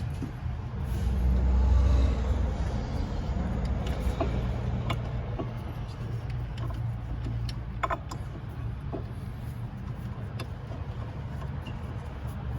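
Metal clicks and knocks from a brake caliper and pads being worked onto a rotor, which will not seat because the pad is hitting the bottom of the caliper housing. Under them runs a steady low rumble that swells about a second in.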